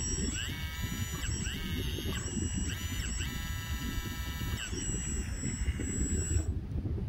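Electric hydraulic pump and valve servos of a 1/16 RC hydraulic excavator whining in four short spurts, each ramping up in pitch, holding and dropping back as the boom and bucket move. A thin steady high whine runs underneath and cuts off about six seconds in, over a low rumble.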